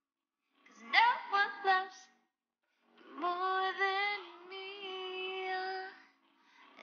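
Background song: a singer's voice in short phrases separated by brief silences, with one long held note in the middle.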